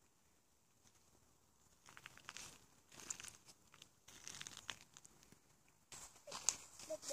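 Faint, irregular crunching of footsteps on a gravel path, in clusters of crackles from about two seconds in and getting louder near the end.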